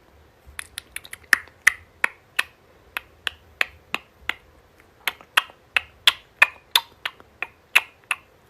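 A long run of sharp, separate clicks or snaps, about two to three a second and unevenly spaced.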